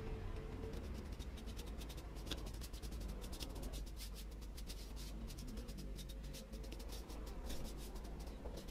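Paintbrush loaded with wood stain scratching and brushing over the wooden hand plane and dabbing in the stain tin: a quick, irregular run of light bristle strokes.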